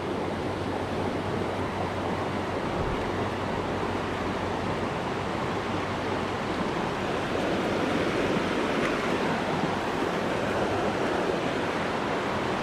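Mountain trout creek running over a rocky riffle: a steady, even rush of water with no breaks.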